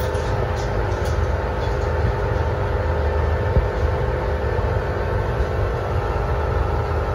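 A steady low hum with a rumble underneath. It holds at an even level and does not change, with no knocks or clicks.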